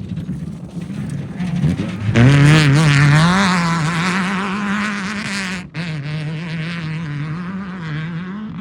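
Off-road race car engine revving hard as it goes past, its pitch rising and falling again and again. It gets suddenly louder about two seconds in, then gradually fades, with a short break partway through.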